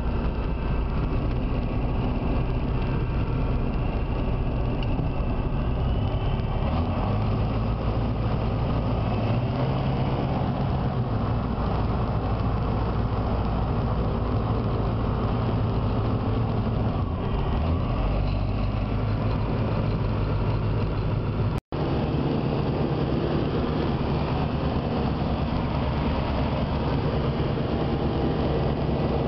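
Light aircraft's piston engine and propeller running steadily, heard inside the cockpit, the engine note shifting a few times. The sound drops out for an instant about three-quarters of the way through.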